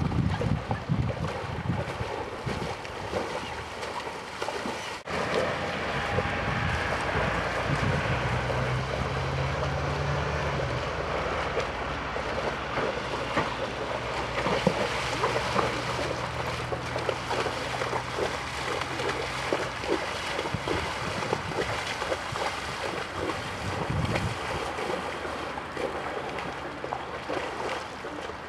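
Water sloshing and splashing as a Haflinger pony wades and swims through a pond, with wind buffeting the microphone.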